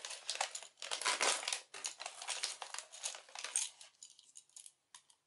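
Mini M&M candies rattling and clicking as a hand scoops through them in a plastic snack bag, with the bag crinkling. The rattle thins to a few scattered clicks near the end.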